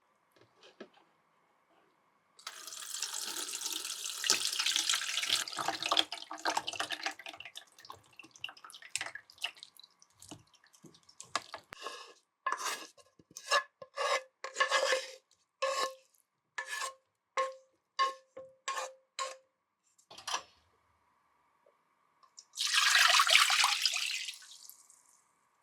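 Kitchen tap running into a sink, then hands rubbing and washing under the water: a run of short strokes with a slight squeaky ring at about two a second. The tap runs again briefly near the end.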